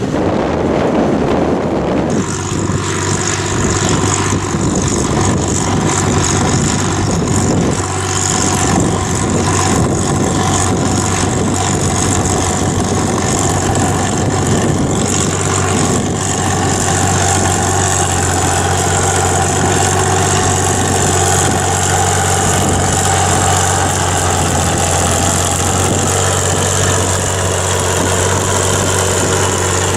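Tractor diesel engine running steadily. It comes in about two seconds in, after a short stretch of wind noise on the microphone.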